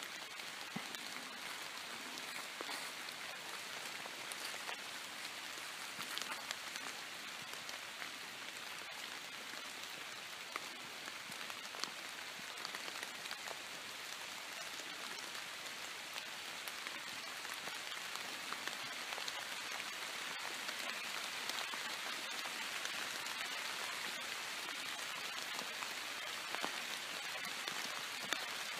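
Light rain pattering steadily, an even hiss dotted with many small drop ticks, growing slightly louder in the second half.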